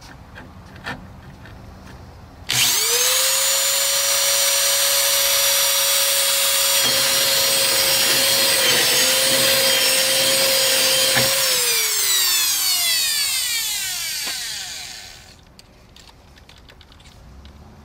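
Electric power tool starting up about two and a half seconds in and running at a steady pitch with a loud hiss for about nine seconds, with a brief dip in speed midway, then switched off and spinning down with a falling whine over a few seconds. A few light clicks come before it starts.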